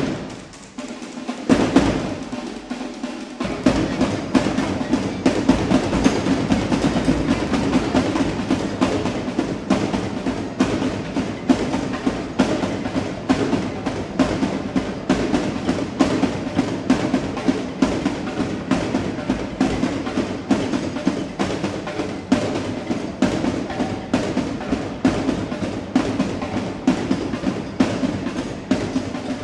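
Marching drum line, snare and bass drums, playing a fast, steady cadence. It starts sharply, builds over the first few seconds, then keeps up a dense, even beat.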